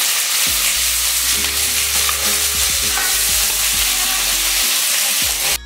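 Sliced onions sizzling as they fry in hot oil in an aluminium kadhai, stirred with a metal spoon. The sound drops out briefly at the very end.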